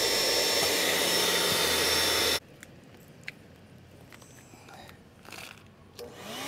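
Electric inflation pump (a Bravo) running steadily as it blows air into the inflatable boat's chambers. It stops abruptly about two and a half seconds in. After a few faint clicks, it starts again near the end, rising in pitch as it spins up.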